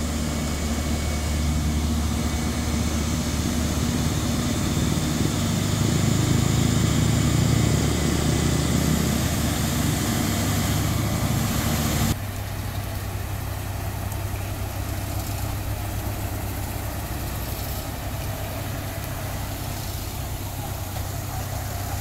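Heavy diesel engine of a Demag HC 920 all-terrain mobile crane running as the crane drives slowly past, a deep steady rumble that swells and then drops abruptly to a quieter level about halfway through.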